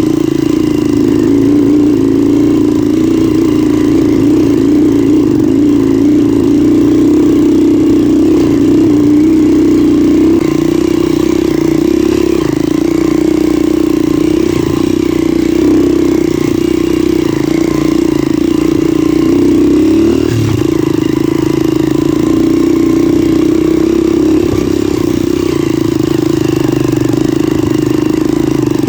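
Motorcycle engine running steadily under way, close to the microphone. There is a brief dip and shift in pitch about twenty seconds in.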